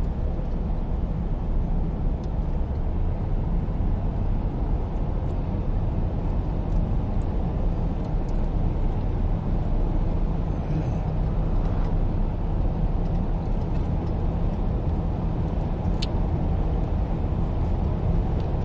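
Steady low rumble of a car's engine and tyres on the road, heard inside the moving car's cabin.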